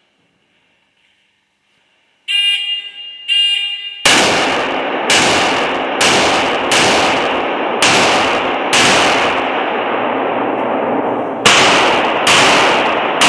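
Two short electronic beeps, then semi-automatic pistol fire: about eight shots at irregular intervals of roughly one second, with a pause of nearly three seconds before the last few. Each shot rings on in a long echo off the walls of an indoor range.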